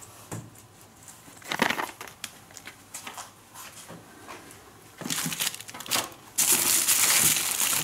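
Fireworks packets being handled and crinkling in a cardboard box. Scattered soft rustles and knocks at first, then a louder, continuous crinkling in the last second and a half.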